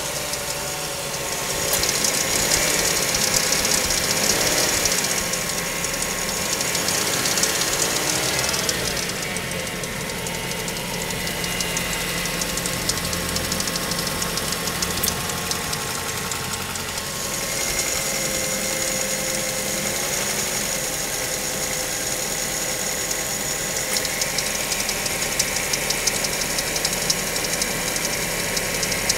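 Mazda5 four-cylinder engine running just after a cold start, with a fast, continuous metallic ticking over the engine drone that sounds like marbles rattling. It is an intermittent cold-start tick that fades after a few minutes and that the dealership could not find.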